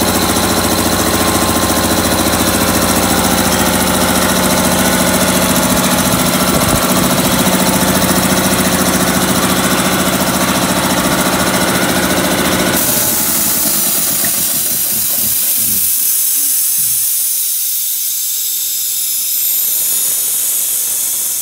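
Emax 10 hp belt-driven air compressor pump running steadily under load. About 13 seconds in it shuts off at its 175 PSI cut-out, and a loud hiss of released air carries on as the pump's running sound dies away.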